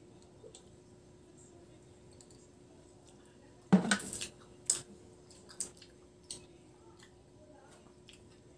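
A drinking glass set down on a table about four seconds in, the loudest sound, followed by a few short clicks of dishes and cutlery during a meal.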